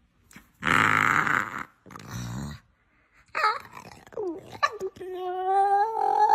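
Pit bull-type dog making Chewbacca-like noises: two rough, growly grunts, then a couple of short yelping glides, and from about five seconds in a long, drawn-out whining moan held at a steady pitch.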